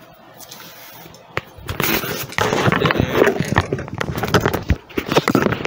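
Rustling and crackling close to the microphone, with scattered clicks, starting about a second and a half in, mixed with muffled voices.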